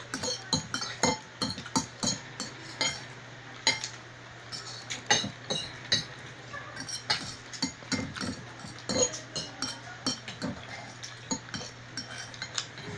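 Forks clicking and scraping against plates as spaghetti is eaten, in many short, irregular knocks, with eating noises between them. A steady low hum runs underneath.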